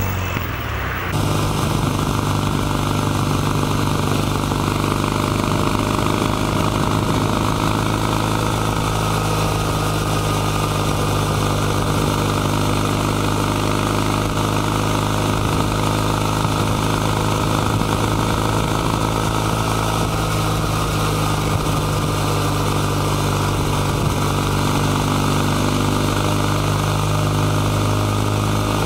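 Kawasaki W800 CAFE's air-cooled 773 cc vertical twin with a 360° crank, running at a steady cruise with the engine note holding its pitch, heard from on board over wind and road noise. In the first second the end of a pass-by fades away before the steady ride begins.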